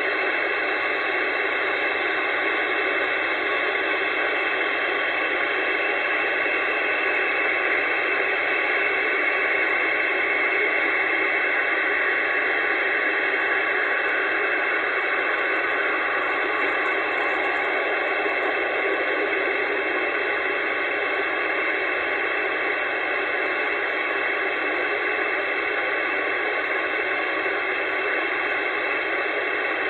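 Steady hiss of band noise from an Anytone AT-666 CB radio's speaker, with no station coming through.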